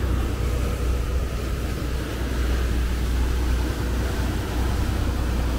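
Sportfishing boat's engines running steadily while trolling: a low, even drone under the rushing hiss of the churned wake.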